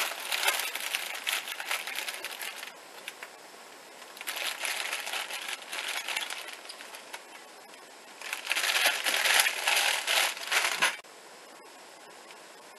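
Plastic salad bag crinkling as hands rummage in it and pull out lettuce leaves, in three bouts of a few seconds each, dying away about two seconds before the end.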